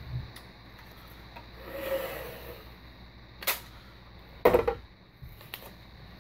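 Blue painter's tape being pulled off its roll: a short rustling swell, then two sharp snaps about a second apart, the second the loudest.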